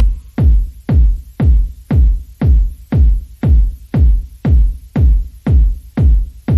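Electronic dance music with a pounding kick drum on every beat, about two beats a second.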